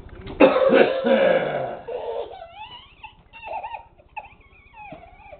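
A man's deliberate fake cough, loud and rough, about half a second in, followed by a baby's high-pitched wavering squeals and laughs.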